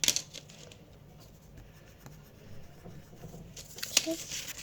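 Coloured pencil scratching on paper in quick colouring strokes, with a sharp knock at the start and a click near the end.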